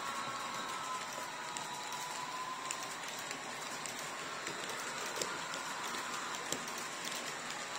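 HO scale model freight trains rolling past on the track: a steady clatter of small wagon wheels with scattered clicks over rail joints, and a faint whine that falls slightly in the first couple of seconds.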